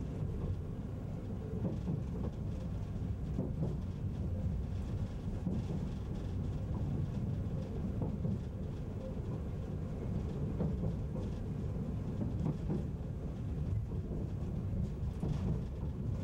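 Interior running noise of a 485-series electric multiple unit: a steady low rumble from the wheels and running gear, with occasional faint clicks.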